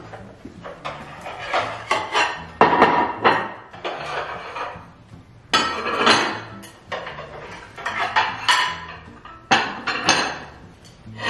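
White ceramic dinner plates clinking and clattering as they are lifted from a stack and set down one at a time on a wooden table, in three bursts, over background music.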